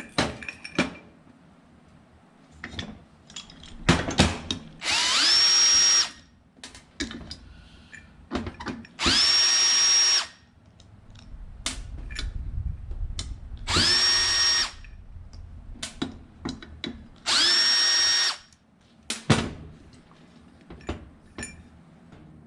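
Small electric power tool run in four short bursts of about a second each. Each burst spins up with a rising whine that levels off to a steady pitch. Clicks and knocks of handling come between the bursts.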